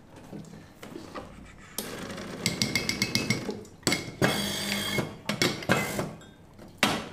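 Espresso tools being handled on a counter: a run of knocks and clinks of metal and crockery, with a short hiss just after the middle.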